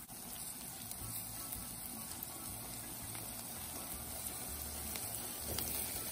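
Sliced onions with crushed ginger and garlic sizzling steadily in hot oil as they are stirred with a wooden spatula.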